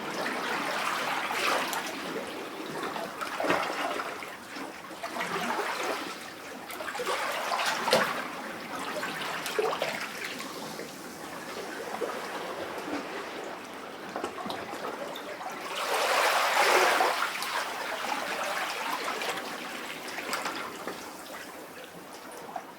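Sea waves lapping and sloshing in a rock cavity, in irregular surges every few seconds, the biggest about sixteen seconds in, with gurgling and trickling water between them.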